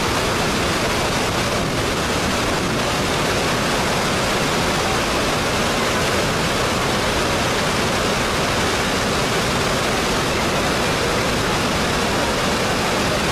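Floodwater pouring over a weir and churning in the spillway below, a steady, unbroken rush of water.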